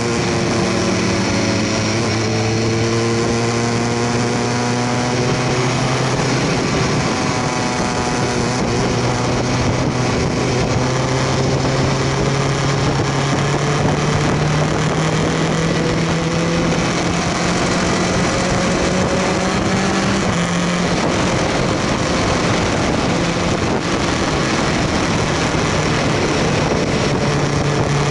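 BMW S1000R's inline-four engine running under way, its revs rising slowly, dropping about twenty seconds in, then rising again, over constant wind and road noise.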